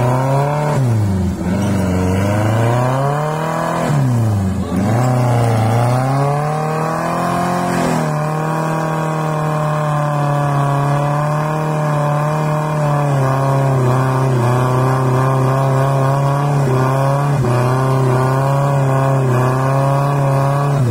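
Suzuki Jimny Katana 4x4's engine under load as it pulls through slippery mud. The revs drop and climb again twice in the first few seconds, then hold high and fairly steady with small wavers.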